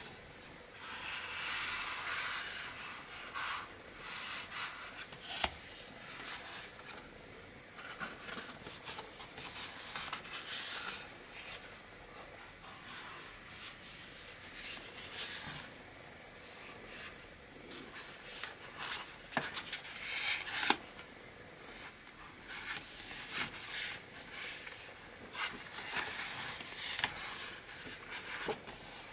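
Pages of a small hard-bound book of prints on watercolour paper being handled and turned by hand: irregular paper rustling and rubbing swishes, with a few sharp light clicks.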